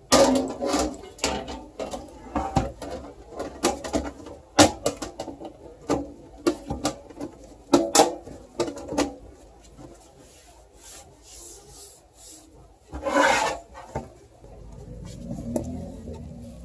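Handling noise of a PC case being put together: an irregular run of knocks, clicks and rubbing as the panels are fitted, with a louder scrape about 13 seconds in. A low steady hum starts near the end.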